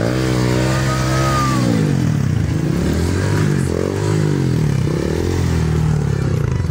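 Trail motorcycle engine revving up and falling back over and over as the bike claws its way up a muddy slope.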